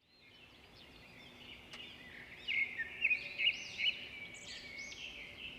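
Several birds chirping and calling at once, with short, arched, overlapping notes that fade in and grow louder about two and a half seconds in.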